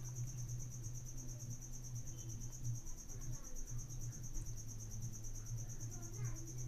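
A steady, high, evenly pulsing trill like an insect's, over a low steady hum that drops out briefly about three seconds in.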